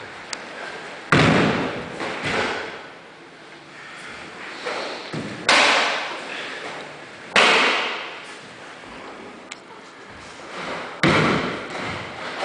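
Karate kata being performed: the gi snapping with sharp strikes and bare feet landing on a wooden floor. There are four loud, sudden hits a few seconds apart, each dying away in the room's echo, with softer swishes and steps between.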